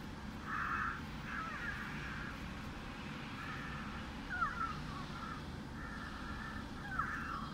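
Hatchimals toy egg's electronic creature calling from inside the shell: a string of short chirping calls, several with quick falling squeaks, the loudest about four and a half seconds in, as the top of the egg is petted.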